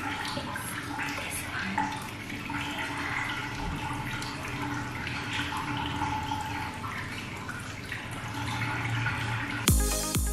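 Water running steadily from a bathroom tap. Near the end, electronic music with a steady beat cuts in.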